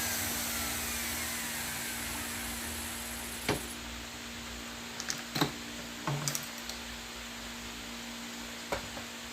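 Hand-held wood router spinning down after being switched off, its whine falling in pitch and fading over the first two seconds or so, followed by a few scattered knocks and clicks from handling the tool and workpiece.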